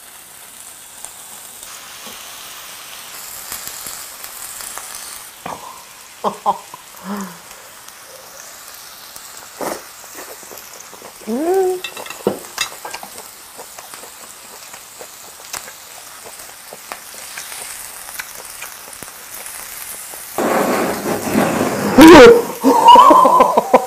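Meat sizzling on a grill, a steady hiss with scattered small crackles. Near the end a sudden loud burst of sizzling with a sharp pop.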